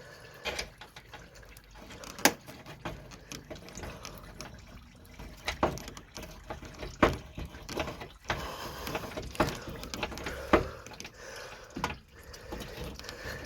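Scattered sharp clicks and knocks of hand work on a transmission cooler line at a car radiator, over liquid dripping and trickling.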